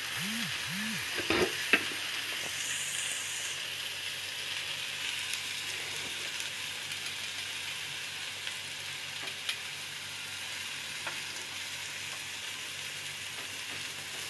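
Chicken, pineapple and vegetable skewers sizzling steadily in a frying pan, with a few sharp clicks of metal tongs against the skewers and pan about a second and a half in.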